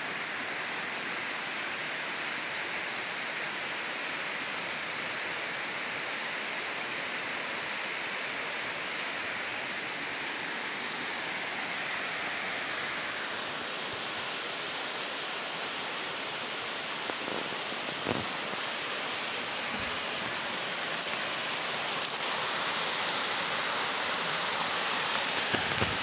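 Waterfall rushing: a steady noise of water pouring down a rock face into a pool. The sound shifts in tone about halfway through and grows a little louder near the end.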